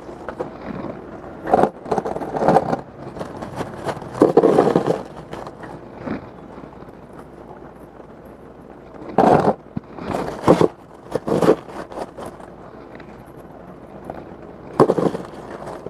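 Hands at potting work, scraping and rustling soil and a pot in short, irregular bursts, with a quieter stretch in the middle.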